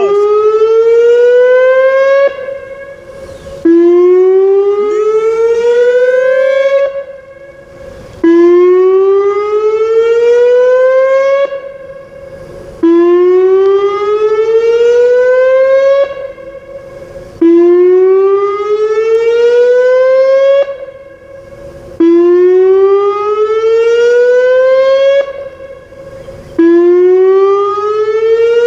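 Whelen WPS 2909 electronic outdoor warning siren sounding a test signal. It is a loud tone that rises over about two and a half seconds, holds for about a second, then cuts off, and the cycle repeats about every four and a half seconds.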